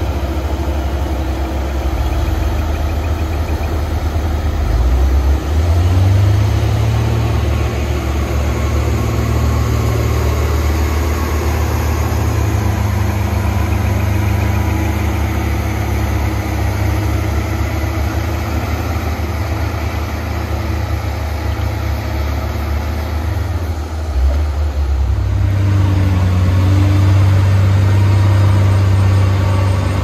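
Heavy diesel engine running steadily. It speeds up about five seconds in, drops back briefly near twenty-four seconds, then picks up again.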